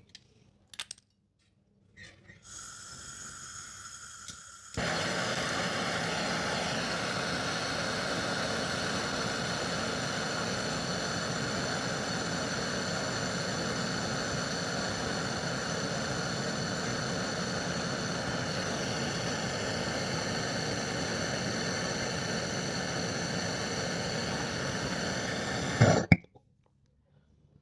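Butane torch burning with a steady hissing flame. It starts softly, comes up louder about five seconds in, holds even for about twenty seconds and cuts off suddenly near the end.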